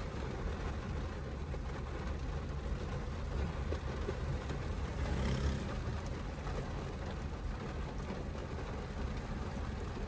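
A car's engine and road noise, a steady low rumble, with the hiss of heavy rain over it; the noise rises briefly about five seconds in.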